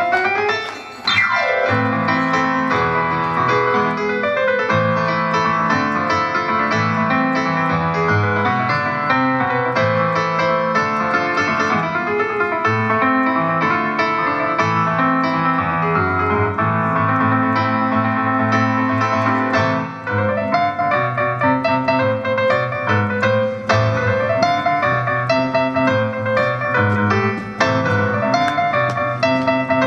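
Casio digital keyboard played with a piano voice: a solo instrumental passage of chords and runs, with no singing.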